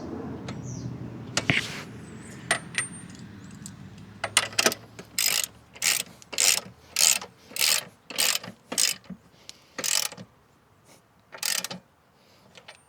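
Ratchet wrench tightening a motorcycle's rear axle nut: a few scattered clicks, then a steady run of short ratcheting bursts, nearly two a second, slowing to two last strokes near the end.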